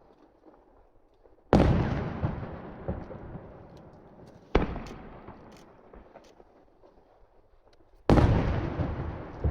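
Aerial firework shells bursting: three loud booms a few seconds apart, each trailing off in a rolling echo, with scattered small pops in between.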